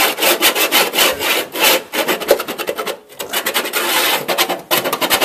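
Rapid, scratchy rubbing and scraping by a hand close to the microphone, with a short break about three seconds in.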